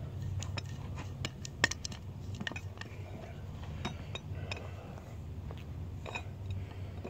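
Scattered metallic clicks and clinks of a large adjustable wrench being set on and worked against a fitting of a metal air-ride leveling valve, one sharper clink about a second and a half in, over a steady low hum.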